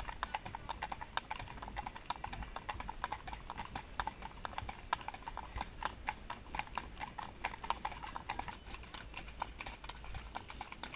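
Hooves of several ridden horses clip-clopping on a hard lane, a dense, uneven patter of sharp clicks.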